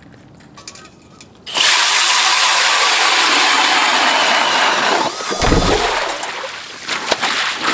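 Powered ice auger boring a hole through lake ice, starting suddenly about a second and a half in: a loud, steady grinding of the blade cutting ice, easing a little near the end.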